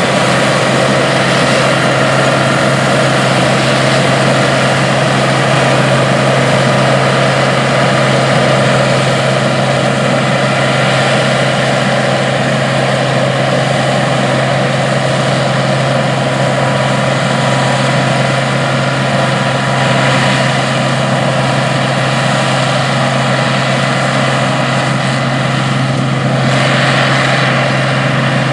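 International 815 combine running steadily while harvesting corn, its engine and machinery making a loud, constant drone with a steady low hum.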